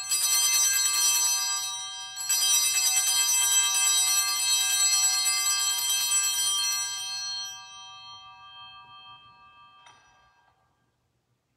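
Altar bells rung at the elevation of the host during the consecration: a bright ringing struck at the start and again about two seconds in, then left to ring out and fade away over the last few seconds.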